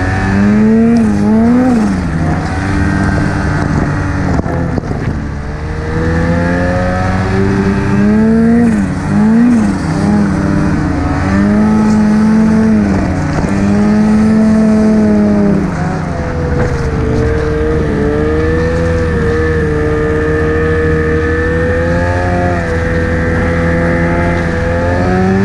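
Ski-Doo 850 turbo two-stroke snowmobile engine running under throttle through deep snow, its pitch rising and falling again and again as the throttle is worked, settling into a steadier, higher drone in the second half.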